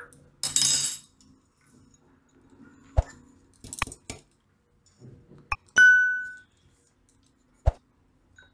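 A steel mixer-grinder jar scraping as coarsely ground peanuts are tipped out into a bowl. Then come several sharp clicks and a single bell-like ding, the sound effect of a subscribe-button animation.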